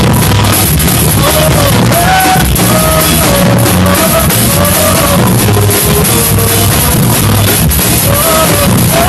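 Loud rock-style gospel song with a full drum kit playing a steady beat under a singing voice.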